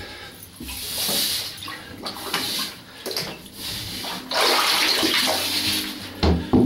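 Water splashing and rushing in several surges as a sturgeon spear plunges through the spearing hole and its rope pays out after it; the loudest rush comes about four seconds in. A sharp thump sounds near the end.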